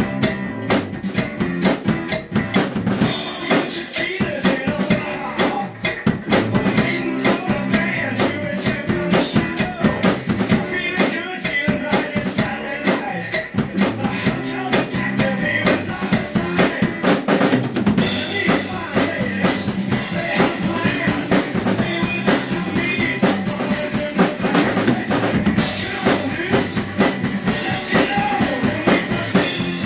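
Drum kit played live along to a rock band recording: a steady driving beat of bass drum and snare, with cymbals, over the band's guitar and bass.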